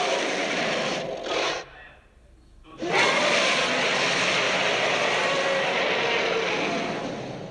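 Werewolf kaiju monster roar sound effects: a loud, noisy roar that breaks off about a second and a half in, then a long, loud roar starting near three seconds that slowly fades near the end.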